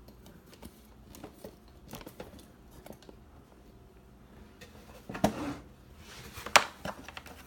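Typewriter carrying case being closed and latched: faint handling clicks, a clunk about five seconds in, then a sharp snap about a second later, the loudest sound, as the case shuts securely.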